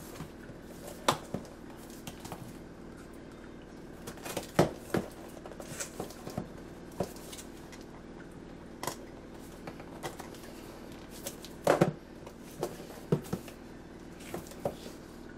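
A cardboard box being handled and turned on a table: scattered taps, knocks and scrapes, the loudest about twelve seconds in, then scissors snipping at the taped seam near the end, over a faint steady hum.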